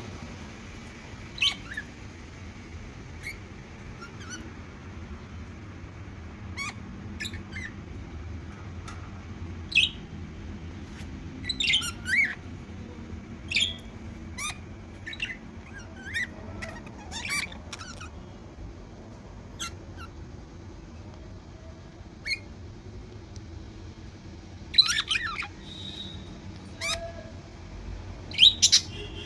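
Pet budgerigars chirping and squawking in short, scattered calls, with a few louder calls near the end.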